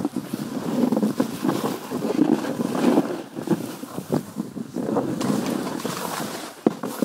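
Snowboard sliding and turning through deep snow, a rushing hiss that swells and eases with each turn, with wind noise on the microphone and a few sharp knocks near the end.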